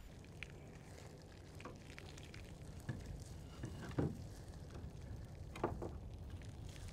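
A few small clicks and knocks at irregular intervals over a low steady hum: a wrench tightening fittings on a light aircraft being assembled.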